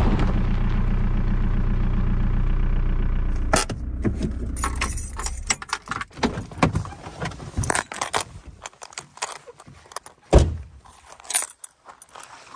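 Volkswagen New Beetle's engine running steadily, then switched off about three and a half seconds in, followed by keys jangling at the ignition for several seconds. A single loud thump about ten seconds in as the car door shuts, then a few lighter knocks.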